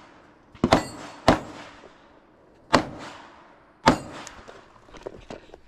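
Five pistol shots fired through the glass port of a ballistic shield. The first two come in quick succession, then three more follow more than a second apart, each dying away quickly.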